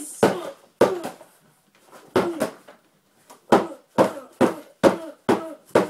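Repeated sharp smacks of a flat handheld object against a boy's face and body: about ten hits in quick runs with a pause in the middle, each followed by a short falling tone.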